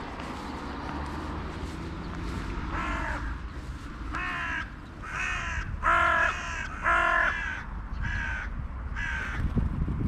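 A crow cawing, about six harsh caws spaced roughly a second apart, the loudest ones in the middle of the series, over a steady low background rumble.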